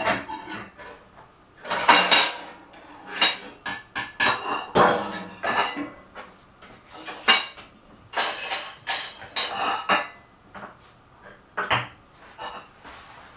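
Dishes and cutlery being handled: a run of clattering clinks from about two to ten seconds in, then one last knock near the end.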